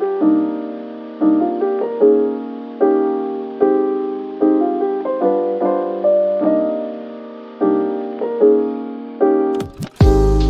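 Background music: slow piano chords, each struck and left to fade, about one a second. Near the end it switches abruptly to a louder, fuller track with a heavy bass.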